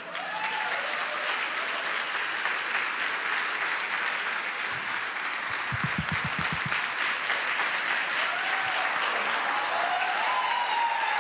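Congregation applauding steadily for about ten seconds, with a few voices calling out over the clapping near the end.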